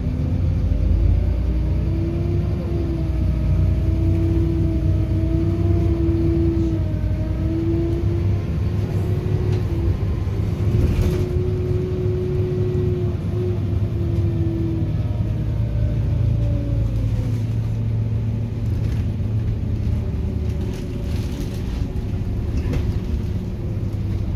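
Volvo B7RLE single-deck bus heard from inside the passenger saloon while driving: a steady low engine rumble with a clear whine over it. The whine holds steady, then falls in pitch and fades about two-thirds of the way through as the bus slows.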